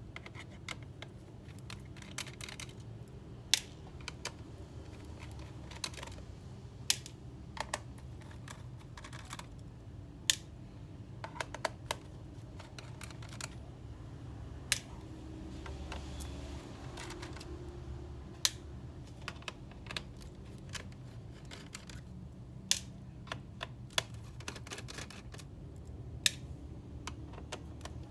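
Irregular sharp clicks and taps of hands and small tools on a laptop's plastic and metal parts, with a few louder clicks every second or two.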